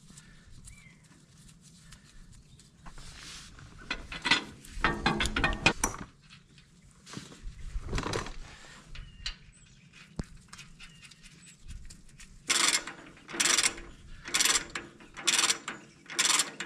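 Ratchet wrench tightening the fixing of a new lower lift arm on a Ferguson 20 tractor, clicking in short strokes about once a second over the last few seconds. Before that, clanks and scrapes of the steel arm and parts being handled and fitted.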